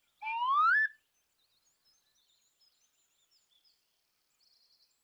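A single loud whistle-like tone sliding upward about an octave, lasting under a second just after the start. Faint bird chirps follow, with a short buzzy trill near the end.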